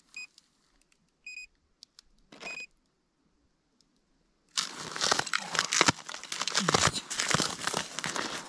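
Three short electronic beeps about a second apart, then, about halfway through, loud crunching and rustling as the angler crouches on the crusty ice and handles the fishing line.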